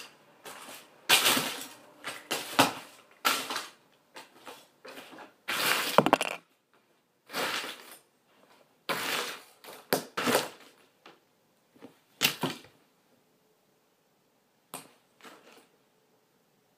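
Plastic toys being kicked and crushed underfoot by a person in high-heeled shoes: irregular bursts of clattering, cracking and scraping, loudest about six seconds in, dying down to a few faint clicks for the last few seconds.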